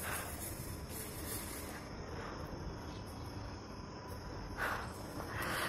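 Quiet background ambience: a steady low hiss with a faint high-pitched whine. There are two short rustling noises near the end.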